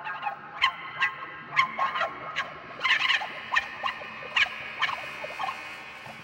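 Live experimental band music: sharp, irregular high squawk-like notes, about two a second, over a sustained ringing tone.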